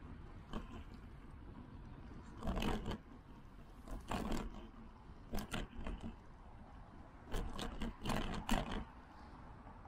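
Riding noise picked up by a bike-mounted action camera: a steady low rush, broken by several short, loud bursts of noise between about two and nine seconds in.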